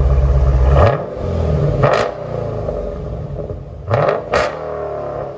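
2015 Dodge Challenger Scat Pack's 6.4-litre Hemi V8 running through factory 3-inch pipes, an X-pipe and Vibrant glass-pack mufflers with the rear mufflers deleted. It is held at high revs, let off about a second in, then blipped once about two seconds in and twice in quick succession near four seconds, falling back to idle between.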